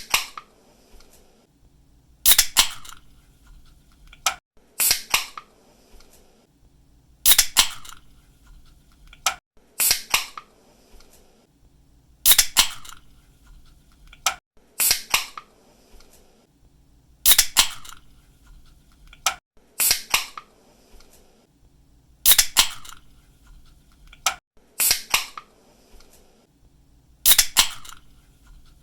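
Aluminium drink can's pull tab snapped open again and again, each a sharp click followed by a short hiss of escaping gas, about once every two and a half seconds.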